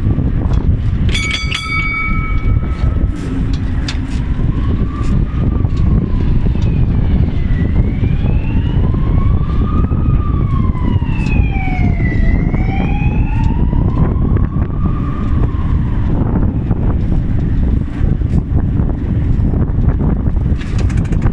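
A wailing emergency siren rising and falling slowly in pitch, from about four seconds in until about sixteen seconds, over a steady heavy low rumble of a vehicle in motion. A short, high, steady tone sounds briefly about a second in.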